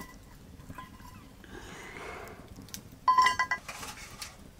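Metal lid taken off an aluminium rice pot, scraping briefly and then clinking and ringing in a quick run of strikes about three seconds in.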